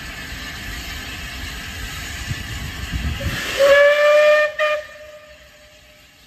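Southern Railway Battle of Britain class steam locomotive 34067 Tangmere hissing steam, then sounding its steam whistle: one blast of about a second, followed at once by a short toot.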